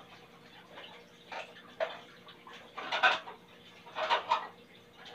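Irregular short bursts of splashing water and clatter, about five in a few seconds, from washing by hand in a kitchen.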